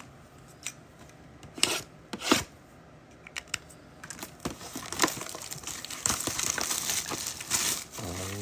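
Plastic wrapping being torn and crinkled as a trading-card box is opened: two short rips about two seconds in, scattered handling clicks, then a longer stretch of crinkling.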